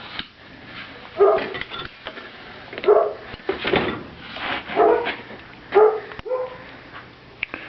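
A dog barking repeatedly, about five or six short barks roughly a second apart, with a few sharp clicks between them.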